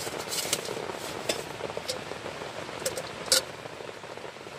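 Steady rain on a tent, a constant hiss with scattered sharp drop taps; one louder click comes a little past three seconds in.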